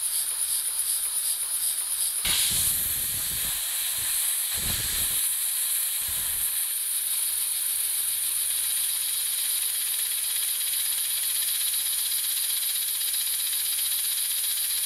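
Air-powered 4x4 double-action LEGO piston engine running on low pressure from a hand-held air nozzle: compressed air hissing, with a fast pulsing from the cycling valve and piston at first. The hiss grows louder about two seconds in, with a few low rumbles up to about seven seconds in, then stays steady.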